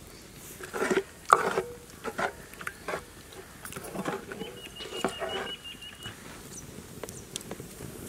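Coconut-shell ladle stirring a thin curry in a cooking pot, with a series of irregular knocks and scrapes against the pot.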